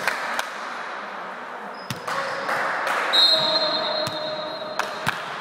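Sharp, echoing knocks of a volleyball being bounced and hit on a wooden sports-hall floor, several at uneven intervals, with a high, steady squeal lasting about a second and a half from about three seconds in.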